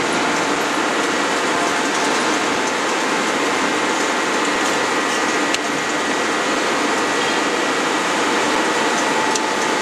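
Steady whirring machinery noise in a forge shop around a hydraulic die forging hammer that is not striking, with no hammer blows. There is one light knock a little past halfway.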